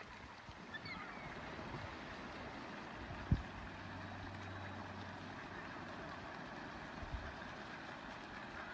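Distant din of a large flock of seabirds calling over the sea, blended with wind and water noise, with a few thin calls standing out about a second in. A short low thump about three seconds in.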